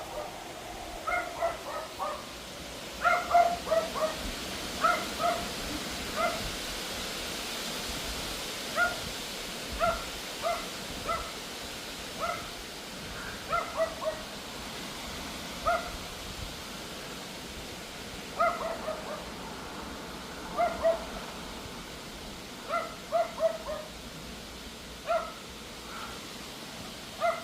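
Pomeranian yapping in short, high barks, singly and in quick runs of two to four, every second or two, over a steady rush of wind.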